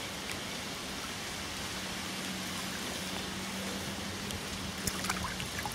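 Soft, steady trickling and lapping of shallow lake water at the bank, with a faint low hum through the middle and a few small clicks near the end.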